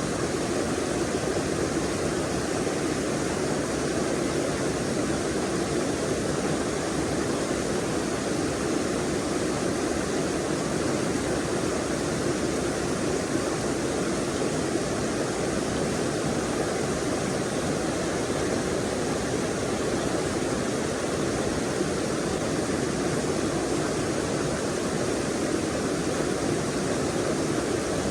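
Forest stream rushing over rocks: a steady, even rush of running water.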